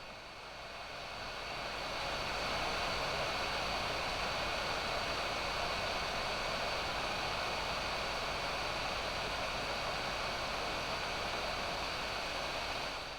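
Hot air rework gun's PWM-controlled brushless fan blowing steadily: an airy hiss with a faint steady high whine, building up over the first two seconds and dying away near the end.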